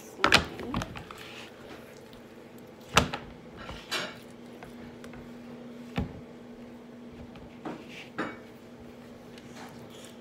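Hands and slime knocking and scraping against a large hard plastic slime tub: half a dozen sharp knocks a second or two apart, the loudest just after the start and about three seconds in, over a faint steady hum.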